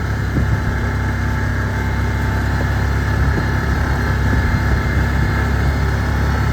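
Vehicle engine running steadily while driven slowly downhill, heard from on board, with a few short knocks and rattles.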